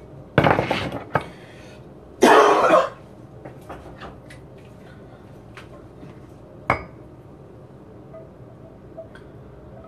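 Kitchen dish sounds as sauce is spooned from a small pan into a ramekin. Two loud rough bursts come in the first three seconds, then a few light clinks of a metal spoon on the dishes and one sharper clink about seven seconds in.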